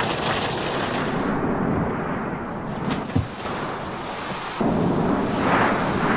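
Strong wind blowing in rumbling gusts, with a short low thump about three seconds in and a sudden louder gust about four and a half seconds in.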